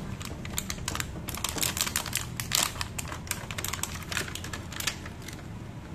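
Thin clear plastic clamshell punnet of strawberries crackling and clicking as it is handled and opened, a rapid, irregular run of sharp clicks that thins out near the end.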